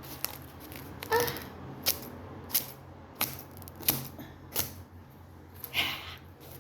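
Scissors snipping through package wrapping in a series of sharp snips, roughly one every two-thirds of a second.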